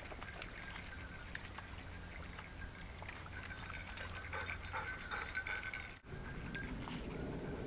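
Dogs moving about and sniffing along a wet forest trail: scattered small clicks, patter and snuffling close to the microphone. About six seconds in, the sound changes abruptly to a lower, denser rustle of movement along the path.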